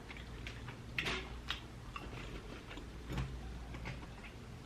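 Faint, scattered mouth clicks and smacks of someone eating close to the microphone, a handful of short sharp ticks with quiet gaps between.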